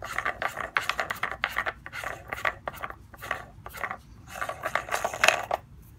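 Plastic nut of a reverse-threaded tank bulkhead fitting spun along its threads by hand: a run of quick scraping clicks, with a louder one near the end before it stops.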